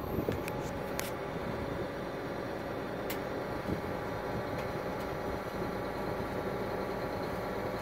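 A steady mechanical hum under an even background hiss, with a few light clicks in the first second and one about three seconds in.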